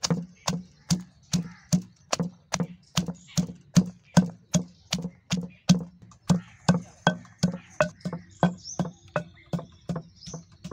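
Long wooden pestle pounding whole green chillies in a heavy stone mortar, a steady rhythm of dull knocks at about two and a half strokes a second.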